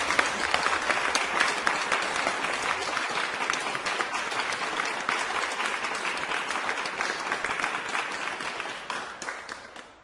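Applause from a crowd, many hands clapping densely; it fades away over the last second or so and cuts off.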